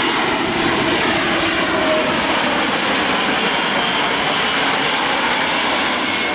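Airbus A400M Atlas on landing approach, its four turboprop engines with eight-bladed propellers running loud and steady as it passes low and close.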